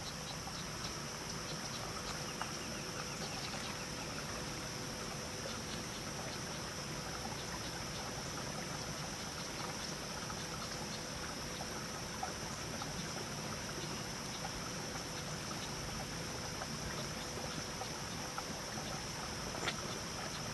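Steady outdoor ambience of water trickling through a shallow grassy channel, with a constant high insect drone over it.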